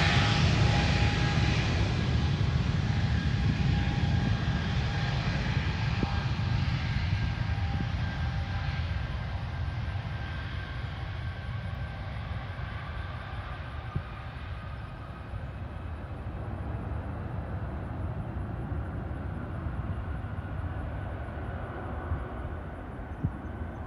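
Jet airliner's engines rumbling with a steady whine on top, fading gradually as the aircraft moves away down the runway.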